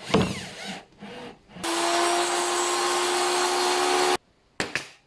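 A power tool running steadily with a constant hum for about two and a half seconds, then cutting off abruptly. Before it come a few short sweeping sounds, and near the end two brief clicks.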